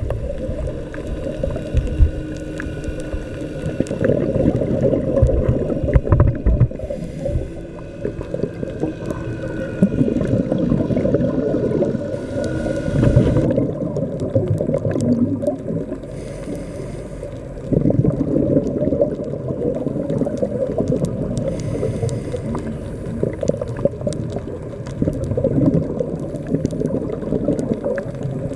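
Muffled underwater sound through a camera's waterproof housing: a scuba diver's regulator breathing and exhaust bubbles, swelling and easing every few seconds, with scattered faint clicks.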